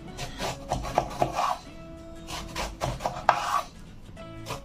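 Chef's knife slicing lengthwise through a peeled eggplant on a wooden cutting board: a few separate strokes, each a short rasping cut. Background music with steady held notes plays underneath.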